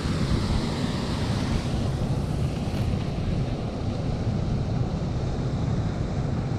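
Wind buffeting the camera's microphone: a steady low rumbling noise with no breaks.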